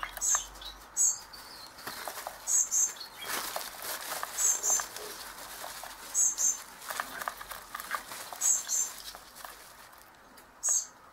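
Budgerigar chicks chirping: short, high chirps, often in quick pairs, repeated every second or two, with some light handling rustle under them.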